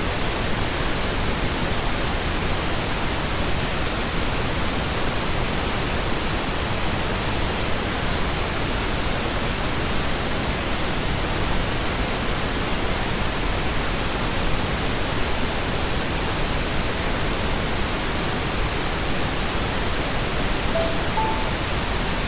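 Steady pink noise. Near the end come two brief soft tones, a lower one then a higher one: the start of the timer's gentle alarm as the countdown reaches zero.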